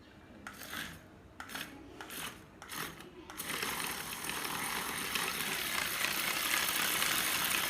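A few short mechanical clacks, then, a little under halfway through, a small geared mechanism of a remote-controlled combine harvester model starts and runs steadily with a dense rattle.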